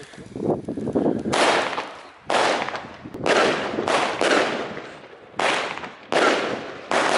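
Nanjing Pangu firework cake firing from the ground: seven sharp shots about a second apart, each followed by a short fading crackle of the bursting shell, after a softer opening second.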